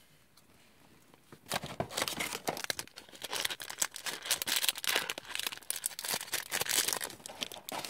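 Toy packaging crinkling and rustling as it is handled, with many small irregular clicks and crackles; it starts about a second and a half in.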